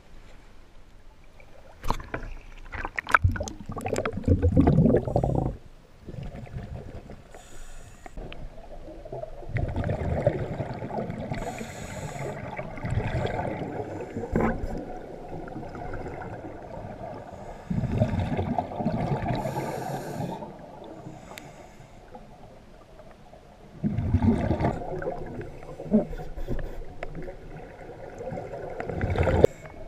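Water sloshing and splashing against a dive camera at the river surface for the first few seconds. Then underwater, muffled bubbling and gurgling from scuba divers' exhaled regulator bubbles, coming in bursts every several seconds with the breaths.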